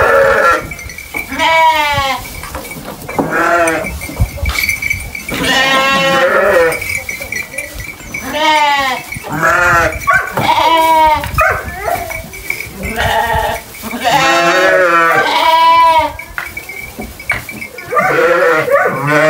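Sheep bleating, about ten separate calls from several animals, one held longer than the rest, as the flock crowds the hay rack at feeding time.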